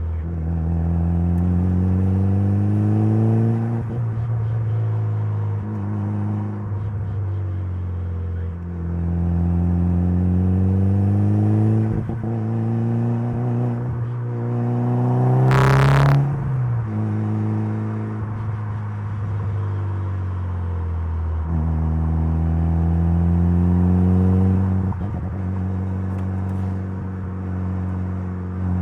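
Mitsubishi Lancer Evolution's turbocharged 4G63 inline-four accelerating hard several times, its note climbing under load and dropping at each shift or lift-off. The highest and loudest climb, about halfway through, ends in a brief sharp burst.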